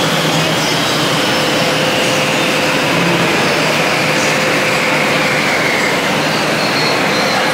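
Heavy rain pouring down steadily, with the Roosevelt Island aerial tramway cabin arriving into its station. The cabin's drive gives a whine that slowly falls in pitch as the cabin comes in, over a steady low hum.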